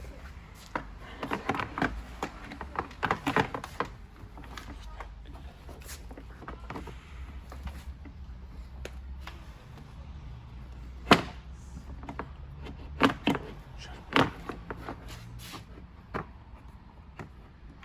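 Irregular knocks and clatter of plastic quad bike body panels being handled and fitted together, with a few louder single knocks in the second half, over a steady low hum.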